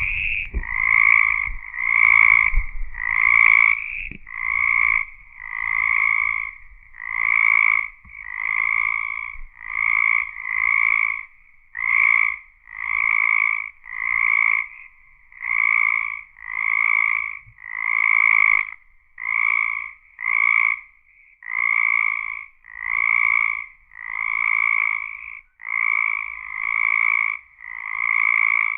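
A frog croaking over and over, about one call a second, each call a short, even note lasting roughly half a second.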